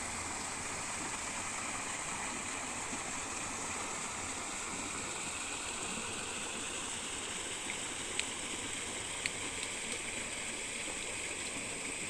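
Waterfall rushing steadily, an even wash of falling water with a thin high steady tone over it. A few sharp clicks come about eight and nine seconds in.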